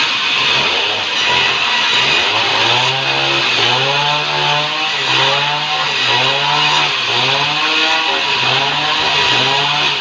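Sawmill band saw running and cutting a sengon log as it is fed through by hand, with a steady high hiss from the blade in the wood. From about two and a half seconds in, a pitched tone that rises and falls repeats about once a second over it.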